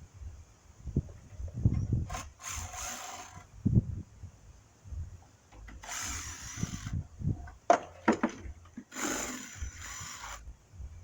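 Wooden planks being worked off an old logging truck's wooden box: scattered knocks and thumps, with three scraping bursts of about a second each.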